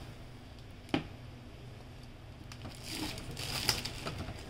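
Small plastic clicks and handling noise from an EcoTank printer's ink tank and ink bottle: a single sharp click about a second in, then a stretch of crinkly rustling with small clicks near the end as the bottle is set onto the tank's filler.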